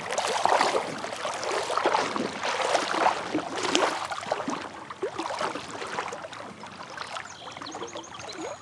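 Water sloshing and splashing around a person's legs as they wade through a shallow river, in uneven surges. The splashing is louder for the first few seconds and softer after that.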